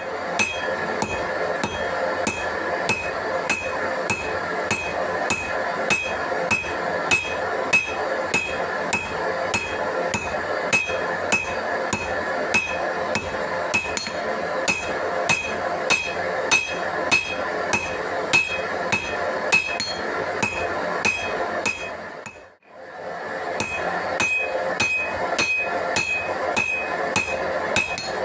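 Hammer blows on steel at an anvil in a steady rhythm of about two a second, each with a short metallic ring, over a steady rushing noise. The blows break off for about a second some 22 seconds in, then carry on.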